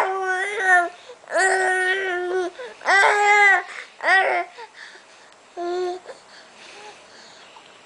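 A baby making a string of drawn-out, wavering cries and coos, about five in the first six seconds, then quiet.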